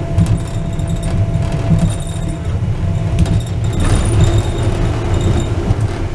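Wuppertal Schwebebahn suspended car running along its overhead rail, heard from inside the car: a steady low rumble with light rattling and clicking from the wheels and car body. About four seconds in, a faint steady whine joins.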